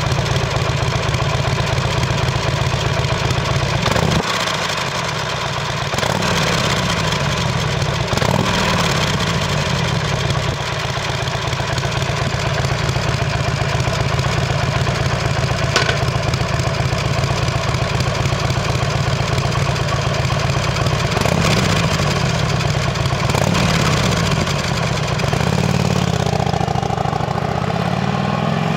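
2007 Harley-Davidson Sportster's air-cooled V-twin running through its chrome exhaust, idling with several short throttle blips. Near the end it revs up repeatedly as the bike pulls away through the gears.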